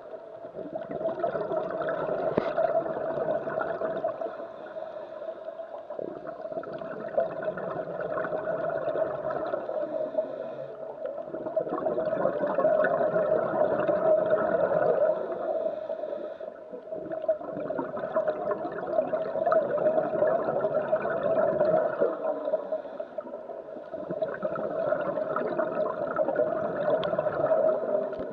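Scuba regulator bubbles heard underwater: bubbling, gurgling exhalations that swell and fade in about five long surges, one every few seconds, with each breath.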